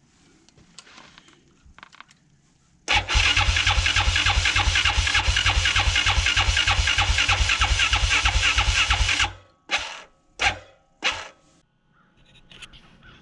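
Yamaha Raptor 660's single-cylinder four-stroke engine being started. Loud rhythmic pulsing begins about three seconds in, runs about six seconds and stops abruptly, and three short bursts follow.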